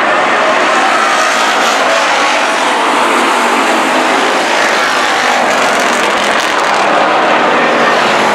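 A pack of dirt-track stock cars racing, many engines running together in a loud, steady din, with engine notes rising and falling as the cars go through the turns.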